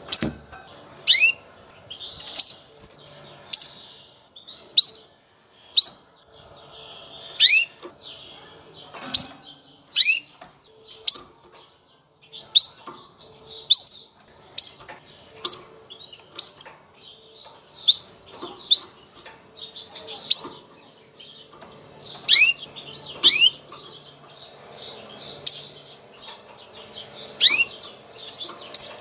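Female canary's mating call: a sharp chirp falling in pitch, repeated about once a second and sometimes doubled, over a faint steady hum.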